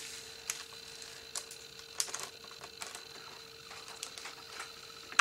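Small plastic bags of diamond-painting resin drills being handled: scattered light clicks and crinkles, with a sharper click near the end.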